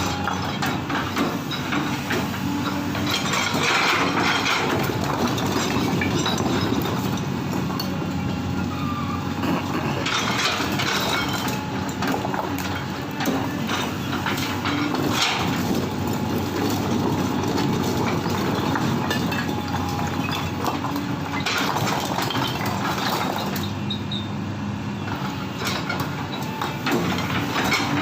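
Hydraulic excavator's diesel engine running steadily under work, with repeated knocks and clatter over it.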